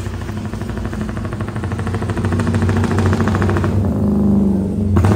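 Tuned motorcycle engine with a rapid, choppy pulsing exhaust note likened to a helicopter, growing louder as it comes closer. Near the end the throttle eases off and the pitch falls.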